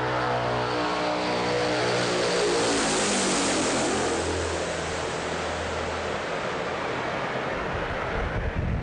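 Antonov An-22's four Kuznetsov NK-12 turboprops with contra-rotating propellers droning as the aircraft flies low past; the propeller tones drop in pitch as it goes by, loudest about three seconds in.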